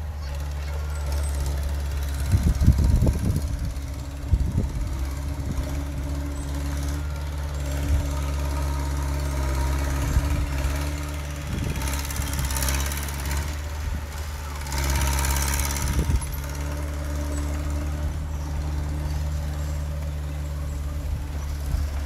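Bulldozer's heavy diesel engine running steadily, with some clanking a few seconds in and two short hissing surges around the middle.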